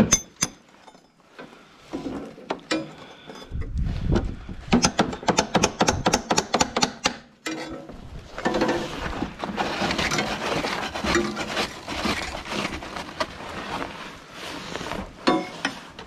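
Hammer blows on ice packed into a snowblower's auger and housing, knocking out the ice build-up that has jammed the auger: a quick run of sharp knocks a few seconds in and a few more near the end, with rougher crunching of ice between.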